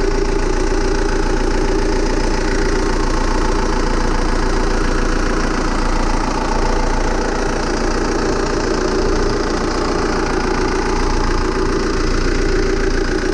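Sailing yacht's inboard diesel engine idling steadily, heard close up inside the engine compartment.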